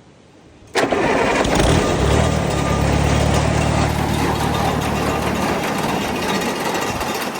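Tractor engine starting: it fires suddenly about a second in and settles at once into steady running, to power the grain dryer.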